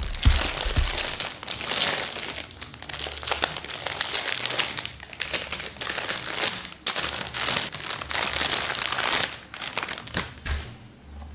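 Clear plastic wrapping crinkling and rustling as it is handled and pulled off a pet hair lint roller, coming and going in loud crackles and stopping about ten and a half seconds in.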